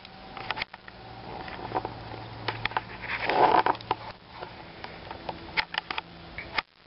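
Burnt-out match-heads and firework debris crackling, with irregular sharp pops and clicks throughout and a brief hiss about halfway through.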